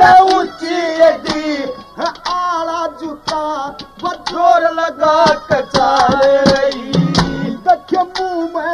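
Haryanvi ragni music: a wavering melody line over frequent sharp hand-drum strokes.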